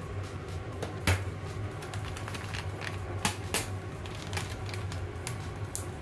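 Scattered sharp clicks and taps from handling a plastic bento box and a furikake packet, the loudest about a second in, over a steady low hum.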